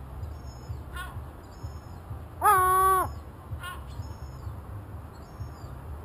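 A gull calling: one long, level, drawn-out call about halfway through, with short, fainter calls about a second in and just after the long one.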